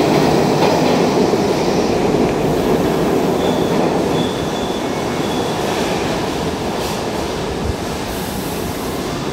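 R68 subway train running along an underground station platform: a steady rumble of steel wheels on rail, easing slightly as it goes. Faint high wheel squeal comes in briefly a few seconds in.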